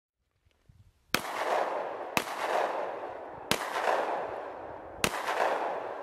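Four shots from a Glock 19X 9mm pistol, spaced unevenly about one to one and a half seconds apart. Each shot is followed by a long echo that fades away.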